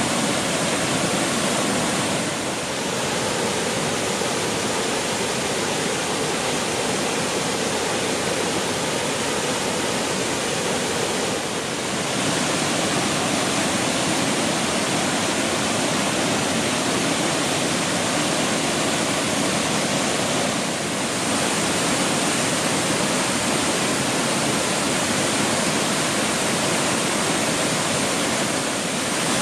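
Waterfall on a mountain creek: a steady, dense rush of falling water, its level dipping slightly for a moment three times.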